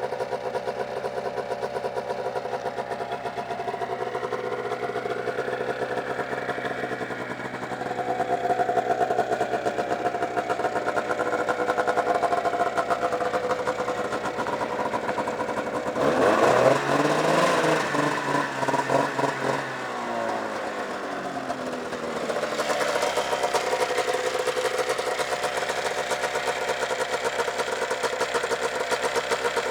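1999 Arctic Cat ZL 500 EFI snowmobile's two-stroke twin engine idling steadily, then revved briefly about halfway through, the pitch rising and falling back before it settles to idle again.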